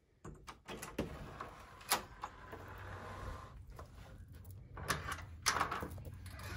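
A wooden door's brass knob latch clicking as the door is opened, then a mesh security screen door being unlatched and pushed open, with a series of sharp clicks and knocks.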